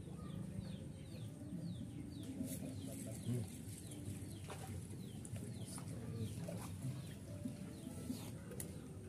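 Chickens clucking, with a run of short, high, falling chirps several times a second through the first few seconds, over a low background murmur with a few sharp clicks.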